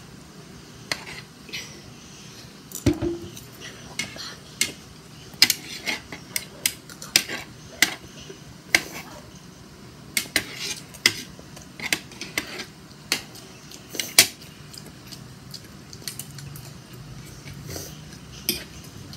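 Metal forks and spoons clinking and scraping against plates while fried rice is eaten, in many short, irregular clinks.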